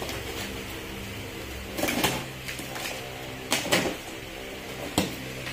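Packing tape on a cardboard box being cut with a blade and the flaps pulled open: short scraping, rustling bursts about two seconds in, near four seconds and again around five seconds, over a steady background hum.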